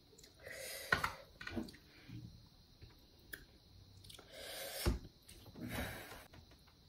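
Eating sounds as chicken curry is served and eaten with rice: a serving spoon knocks on the dish, fingers mix and squish rice and curry on the plate, and there is some chewing. The sounds come as a few soft scrapes, with two sharp clicks, one about a second in and one near five seconds.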